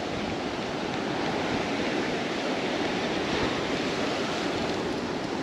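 Surf washing up the beach: a steady rush of small breaking waves.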